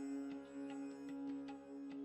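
Background music: plucked-string notes over a steady drone.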